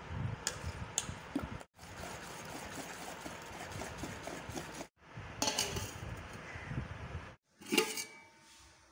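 Steel spoon beating thick dhokla batter in a steel bowl: wet slopping with light clinks of spoon against metal, cut off briefly a few times. Near the end a steel plate clanks sharply against the bowl.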